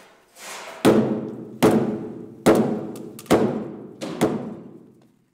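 A heavy wooden mallet pounding a hewn timber beam at a joint. Five heavy wooden knocks come about once a second, each fading out before the next.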